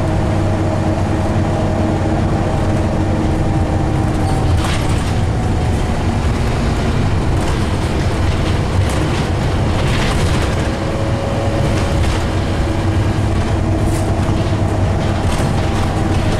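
Scania OmniCity N230UD double-decker bus heard from inside the passenger saloon while under way: its five-cylinder diesel engine hums steadily under road and tyre noise, and the engine note shifts a few times. A few brief rattles come from the interior fittings.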